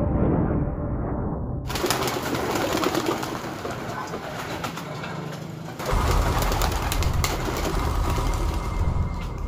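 Intro music cuts off about a second and a half in, then racing pigeons cooing in their loft cages, with a low rumble joining about six seconds in.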